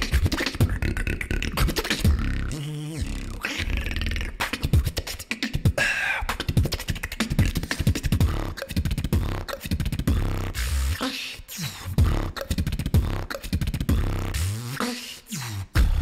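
A beatboxer performing solo into a microphone: a fast, dense rhythm of vocal kick drums and snares over a low bass, with short pitched vocal lines laid in.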